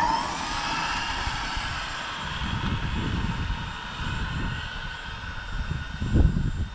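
Arrma Infraction RC car's electric motor whining at full throttle on a speed run, the whine dropping slowly in pitch and fading as the car races away. Gusts of wind rumble on the microphone, loudest near the end.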